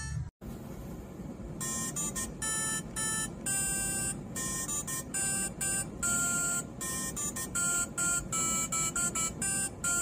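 DEF CON 30 "Human Sampling Keyboard" badge playing a tune of short electronic beeping notes as its printed piano keys are pressed, one note at a time at changing pitches. The notes start about a second and a half in, over a low steady hum.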